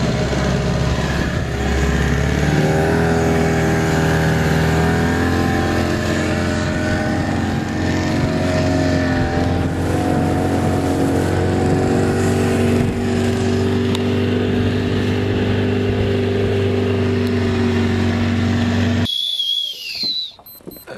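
Small boat's outboard motor running steadily at speed over a rushing noise, its pitch shifting slightly about two and a half seconds in. The engine sound cuts off suddenly near the end.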